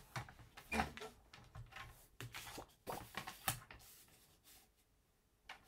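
Cardstock being handled and positioned on a paper trimmer: a series of soft taps, scrapes and paper rustles about every half second, dying away to near silence near the end.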